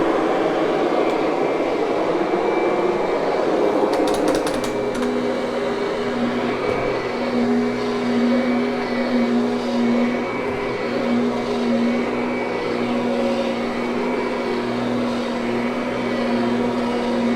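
Kirby upright vacuum cleaner running on carpet. Its motor tone wavers for the first few seconds, then settles to a steady hum, with a few brief clicks about four seconds in.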